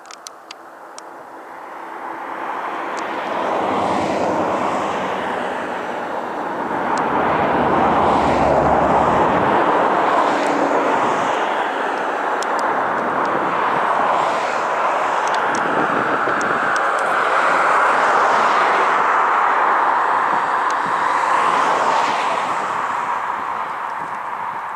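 Twin propeller engines of a Canadair amphibious water bomber at takeoff power as it rolls, lifts off and climbs past. The sound swells about two seconds in, stays loud, and eases slightly near the end.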